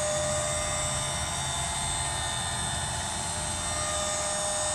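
Electric lift motor of a motorhome's ceiling drop-down bed running steadily as the bed lowers: an even mechanical hum with a steady high whine over it.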